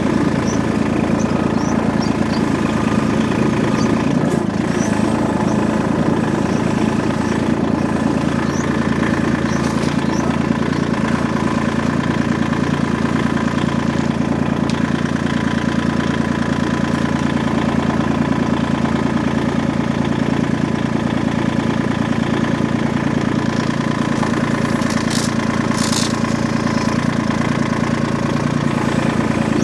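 An engine running steadily at one even speed, with no revving or change.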